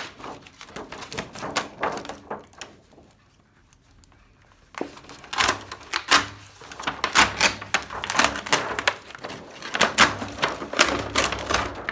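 Thin plastic reflector sheet of an LED TV backlight crackling and crinkling as it is lifted and peeled away from its tape: a rapid, irregular run of crackles that dies down for a couple of seconds, then picks up again about five seconds in.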